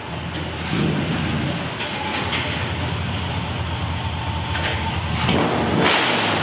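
1981 GMC K1500 4x4 pickup's crate engine running at low speed as the truck creeps forward, with a steady low exhaust rumble. A louder rushing noise rises about five seconds in.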